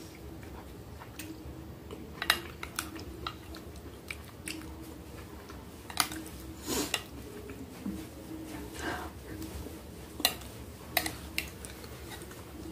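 Chewing and mouth sounds of someone eating soft ravioli in cream sauce, with a metal fork clinking sharply against a glass baking dish about half a dozen times.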